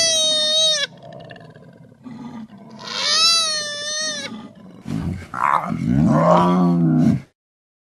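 Two high, wavering animal cries of about a second each, then from about five seconds a lower, rasping growl from a lion cub that cuts off abruptly.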